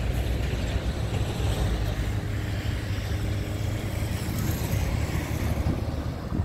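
Steady low outdoor rumble: wind buffeting the microphone over road traffic and the freight train rolling away into the distance. A car passes close by near the end.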